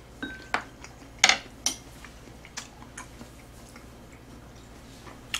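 Chopsticks clicking sharply against a metal tray and dishes, about seven separate clicks spread unevenly, with chewing between them.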